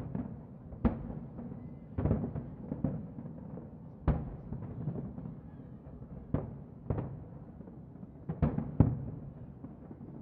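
Fireworks shells bursting over the harbour: about ten irregular booms and bangs, the loudest near the end, over a continuous low rumble of further bursts.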